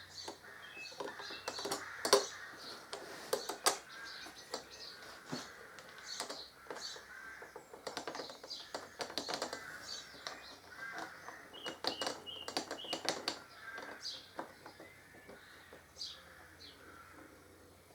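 Irregular metallic clicks and knocks of a wrench, bolts and steel windscreen brackets being handled and loosely fitted, sharpest about two seconds in and in a cluster around the middle.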